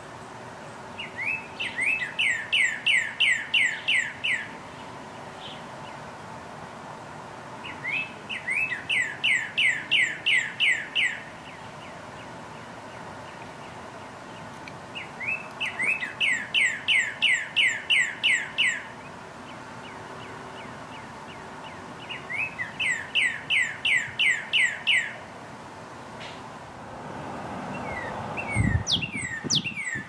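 Male northern cardinal singing its mating song: four phrases about seven seconds apart, each a quick run of about ten loud, clear whistled notes, every note sliding downward. Near the end a low thump and a louder background come in as singing starts again.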